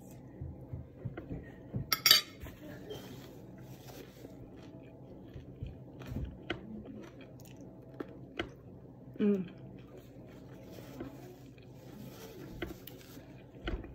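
A person eating egg and tortilla: quiet chewing with scattered small clicks and handling noises, and one sharp click about two seconds in.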